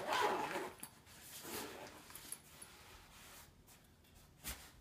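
A zipper being pulled shut on a soft insulated carrying bag, a short zip in the first second, then a fainter rustle of the fabric. A single soft click or knock comes near the end.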